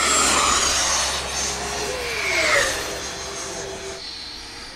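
Radio-controlled jet's ducted fan whining and hissing as it flies past, its pitch sliding down as it goes by, loudest about halfway through and then fading.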